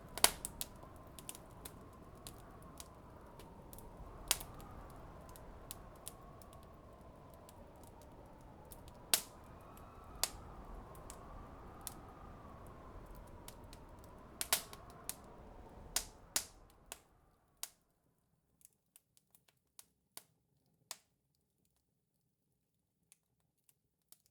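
Fireplace crackling: irregular sharp pops and snaps over a low hiss, with a faint wavering whistle behind. The hiss and whistle fade out about 17 seconds in, leaving a few scattered pops.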